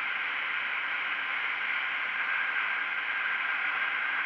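Steady wind rush over an exposed action camera's microphone on a KTM 125 Duke ridden at road speed, with the bike's single-cylinder engine faint underneath.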